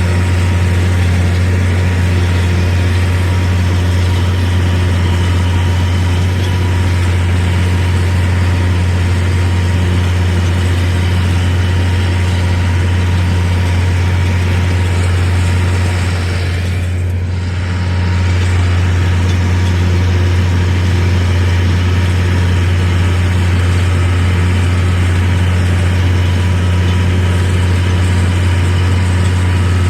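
Tractor engine running steadily with a constant low drone, dipping briefly about two-thirds of the way through.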